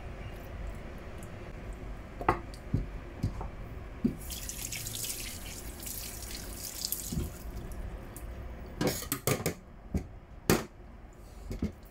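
Kitchen sink tap running for about three seconds, starting about four seconds in, with a few sharp knocks and clicks before and after it.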